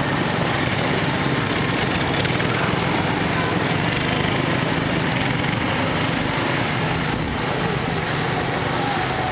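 Small go-kart engines running steadily as a group of parade go-karts drives past.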